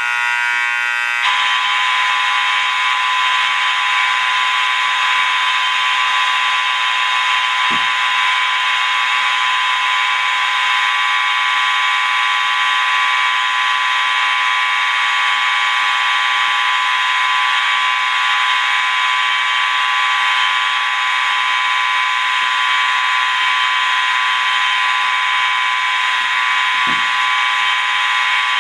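A collection of about nineteen fire alarms going off together, triggered from a pull station: a loud, continuous blare of many overlapping tones, thickening as more units join about a second in.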